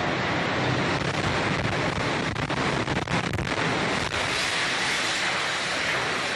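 Loud, continuous roar of the South Tower of the World Trade Center collapsing, heard from inside the North Tower lobby. Rapid crackles and knocks come between about two and three and a half seconds in, and from about four seconds in the roar turns into a harsher hiss.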